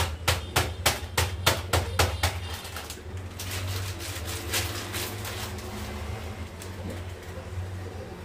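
Sharp, evenly spaced knocking, about three knocks a second, that stops a little over two seconds in, leaving a steady low hiss.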